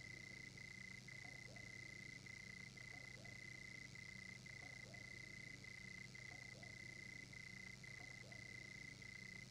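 Faint night ambience of frogs calling, with a steady high trill broken by short gaps nearly twice a second.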